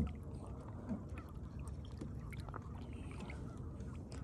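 Water lapping and trickling against the hull of a moving canoe, with a short knock at the start and faint small clicks scattered through.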